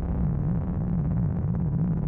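Electronic ambient music: a low drone that wavers up and down in pitch a couple of times a second over a dark, rumbling noise bed.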